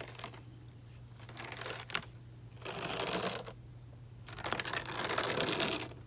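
Plastic water bottle filled with water, baby oil and pebbles being turned and shaken in the hands, in two noisy bursts, one about halfway through and one near the end, with a single click about two seconds in.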